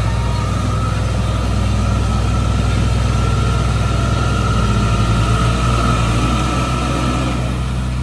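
Tata heavy truck's diesel engine running under load as the loaded tractor-trailer pulls slowly through deep mud, with a steady high whine that grows louder in the middle seconds.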